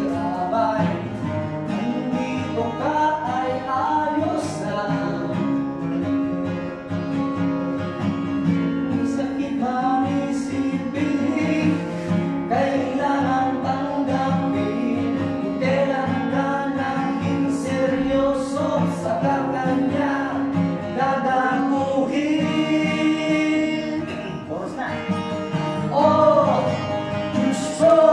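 Two acoustic guitars strummed and picked in an informal jam, with a man's voice singing along.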